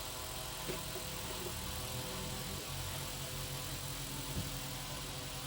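An engine running steadily with a low hum, with a couple of faint knocks.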